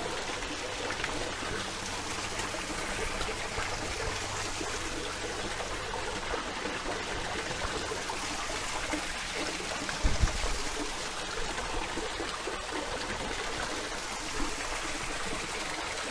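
Steady rushing noise of running water, with a single low thump about ten seconds in.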